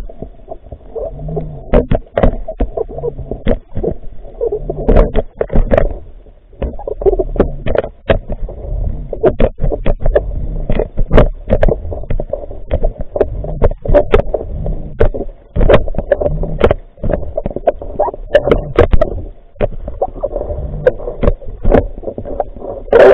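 Muffled underwater noise picked up through a camera's waterproof housing: a low rumble of moving water with many sharp clicks and knocks at irregular intervals, several a second.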